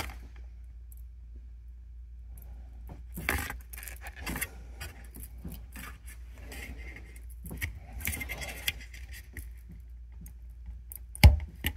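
Scratching and clicking of a 40-pin DIP chip's pins being pressed by thumb into a double-wipe IC socket: a few short scratchy bursts, then a sharp click near the end. A low steady hum runs underneath.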